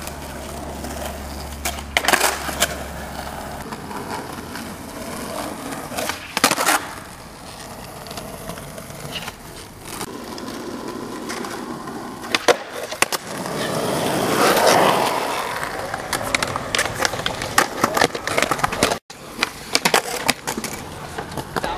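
Skateboards on asphalt and concrete: wheels rolling, with sharp clacks from tails popping and boards landing, more frequent towards the end. The rolling swells louder for a couple of seconds a little past the middle.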